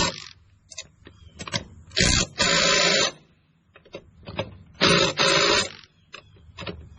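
Cordless impact wrench running the lug nuts on a tractor's front wheel in short bursts: one ending at the start, then two more about two and about five seconds in, each a quick blip followed by a rattling run of under a second.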